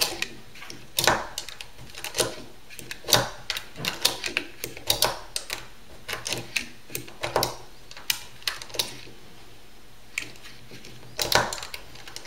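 An UpLULA plastic-and-metal magazine loader being squeezed as 9mm cartridges are pushed one by one into a stiff-sprung 17-round pistol magazine: irregular sharp clicks and snaps, at times several a second, with a louder pair near the end.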